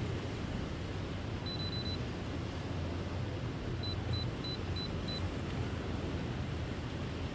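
Steady rush of wind and small surf breaking on a beach, with a low rumble. A high electronic beep sounds once for about half a second, then five short beeps follow at about three a second.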